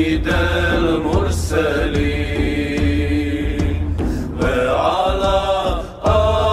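Male vocal group singing a Bosnian Islamic devotional song (ilahija) in long held notes over a steady low drone, with a short break in the singing near the end.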